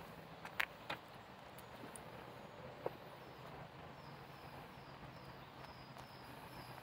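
Stiletto high heels clicking sharply twice on stone paving, then once more about two seconds later, over steady outdoor background noise.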